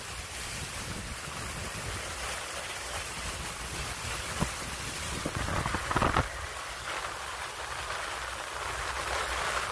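Steady rushing of wind and water aboard a boat at sea, with a low rumble underneath. A brief knock about halfway through and a short louder burst just after.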